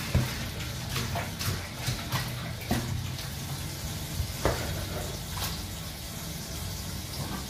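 Hands at kitchen food-preparation work: scattered short clicks and knocks of pots and utensils over a steady background of rustling and light water noise.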